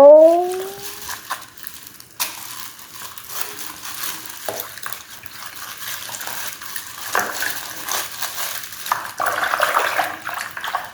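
Hands squishing and stirring slime: wet clicking, crackling and popping. It opens with a short rising squeak.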